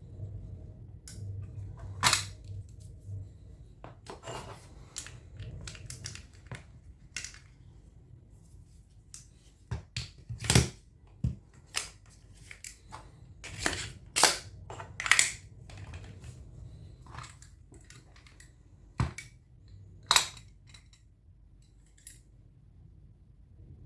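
Irregular sharp clicks and knocks of small hard parts of a diecast toy being handled and worked on a bench, a few louder knocks standing out among lighter taps.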